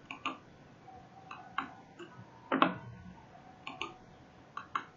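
Computer mouse buttons clicking: about ten short, sharp clicks spaced unevenly, some in quick pairs, the loudest about two and a half seconds in.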